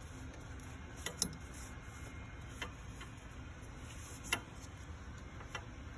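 Five or so light, sharp clicks and taps, two of them louder, from a gloved hand working a rag over the engine's water pump mounting surface, over a low steady background hum.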